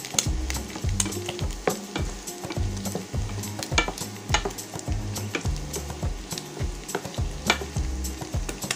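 Chopped chicken gizzards sizzling in a stainless steel frying pan while a wooden spatula stirs them, with frequent irregular scrapes and knocks of the spatula against the pan.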